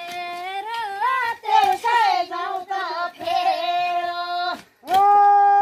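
A high voice singing a Nepali folk work song for weeding maize, unaccompanied, with bending, ornamented notes and a long held note near the end.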